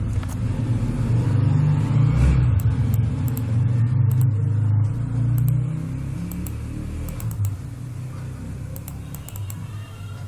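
Hydraulic excavator's diesel engine running, a steady low rumble that drops in level about six seconds in, with a few faint clicks.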